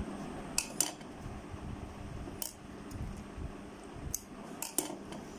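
Scissors snipping off loose threads: several short, sharp metallic clicks at uneven intervals, two close together about half a second in and a quick cluster near the end.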